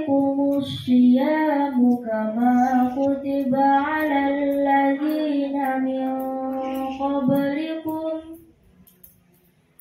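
A girl's voice chanting Arabic in long, melodic held notes with slow ornamented glides, in the style of Quran recitation (tilawah). The chant stops about eight seconds in for a breath pause.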